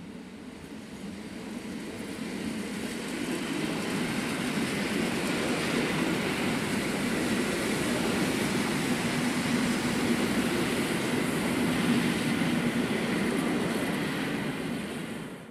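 ED72 electric multiple unit passing by: the rumble of its wheels on the rails grows over the first few seconds, stays loud as the cars go past with a faint steady whine over it, and dies away at the very end.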